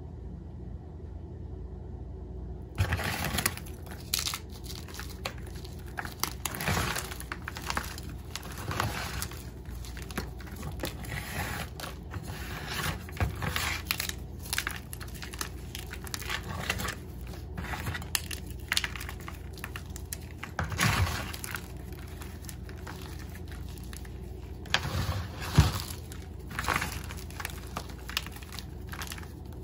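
Hands crushing and crumbling blocks of gym chalk in a bowl: irregular dry crunches and crumbling, one after another, beginning about three seconds in.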